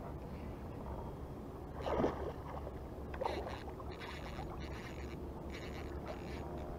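Water splashing in the shallows as a small hooked fish is wound in on an ultralight spinning reel, with short spells of the reel's gear whirring as the handle is turned. The loudest splash comes about two seconds in.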